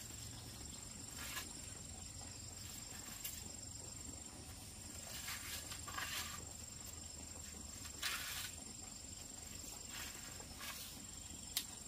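A steady high-pitched insect drone, with about seven irregular scrapes and knocks spread through it, the strongest about two-thirds of the way in and again near the end.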